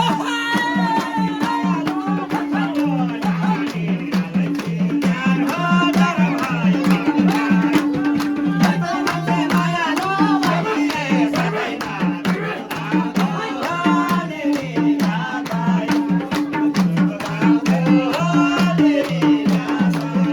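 Music: a song with singing over a steady, busy percussion beat and a repeating bass line.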